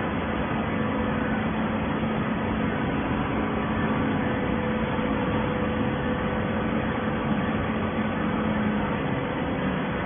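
Hydraulic horizontal baler running: a steady machine hum with a low tone over an even noise, unchanging throughout.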